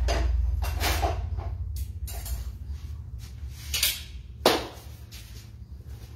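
A run of knocks and clunks from dishes, cups or a cupboard being handled in a kitchen, with a sharp knock about four and a half seconds in, over a low rumble in the first second or so.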